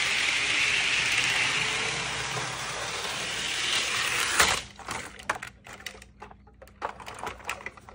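Model train running along the track with a steady whirring hiss; about four and a half seconds in a sharp clack cuts it off, and scattered small clicks and rattles follow.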